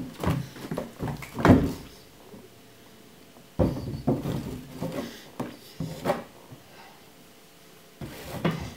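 Thumps, knocks and scrabbling on a wooden floor as a tabby kitten pounces and lands and a hand pats the boards. They come in bursts: a run in the first couple of seconds with the loudest thump about a second and a half in, a pause, another run in the middle, and more near the end.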